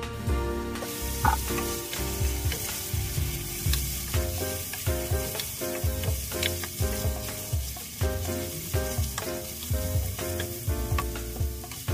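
Carrot strips sizzling in hot oil in an aluminium pot, stirred and scraped with a spatula, giving repeated soft knocks. The sizzle starts about a second in. Background music plays underneath.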